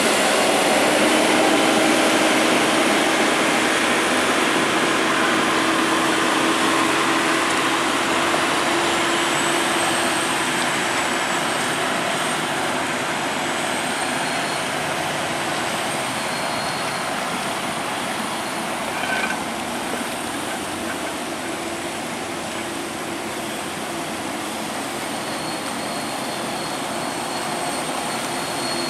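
Heavy truck engine running steadily under load as it hauls a large fishing boat on a trailer, with a steady low drone and a faint high whine over it.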